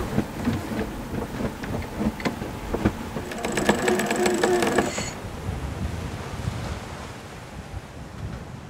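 Sailboat cockpit winch cranked with a winch handle, its pawls clicking rapidly for about a second and a half in the middle, then stopping abruptly: a line being winched in to depower the sails. Wind and rushing sea water run underneath.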